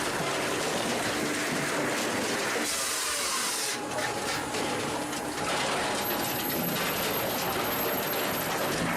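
Heavy machinery running with a steady, dense mechanical noise, with a burst of hissing about three seconds in. It cuts off suddenly at the end.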